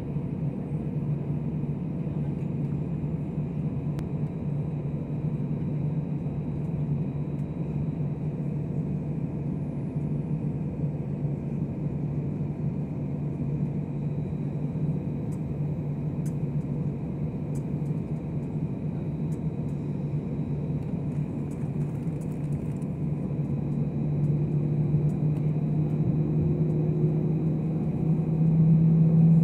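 Airbus A319 jet engines at low taxi power, heard inside the cabin as a steady drone with a low hum. The drone grows louder over the last few seconds.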